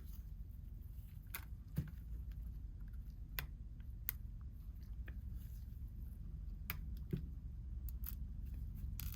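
Scattered small clicks and light taps of hand tools against an iPhone XR's frame and screen, irregular and a second or so apart, over a low steady hum.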